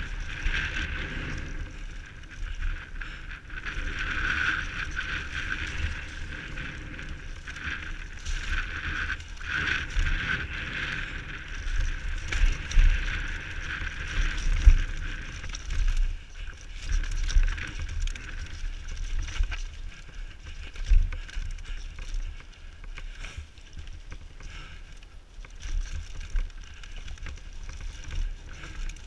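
Downhill mountain bike rattling and clattering down a rough grassy and rocky trail, with wind rushing over the helmet-camera microphone. Sharp knocks from the wheels striking rocks stand out about halfway through and again about two-thirds of the way in.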